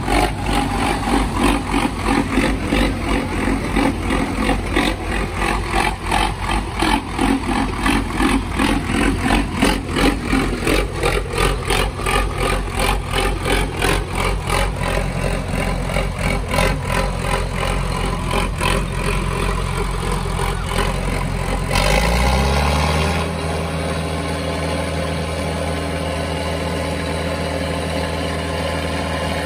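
Tractor diesel engine chuffing in rhythmic pulses, two or three a second, as it is turned over. About 22 seconds in it catches and settles into a steady idle.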